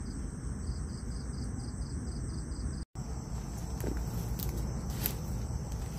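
Night insects chirping in a steady pulsing trill, about three to four pulses a second. After a brief dropout about three seconds in, a steadier insect chorus goes on, with a few light snaps and rustles of dry brush underfoot.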